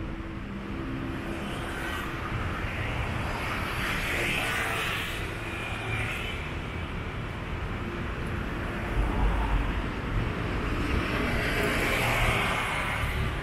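City street ambience: road traffic going by on a boulevard, a steady low rumble with a swell as a vehicle passes about four seconds in and another near the end.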